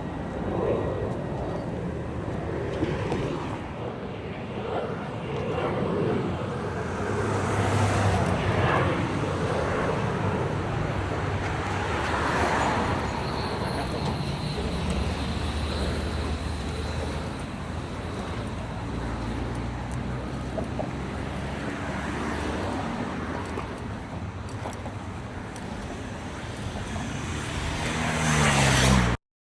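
Steady road traffic noise. Near the end an engine rises in pitch and grows louder, then the sound cuts off abruptly.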